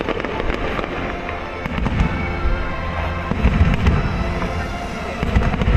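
Fireworks going off: deep booms with many sharp crackles and pops, over background music.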